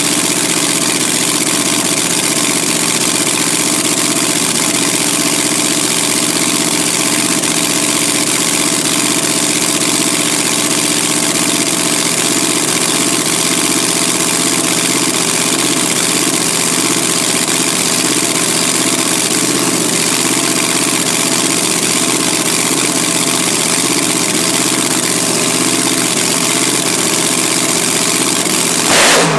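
Engine idling steadily, with a brief louder change in its note just before the end.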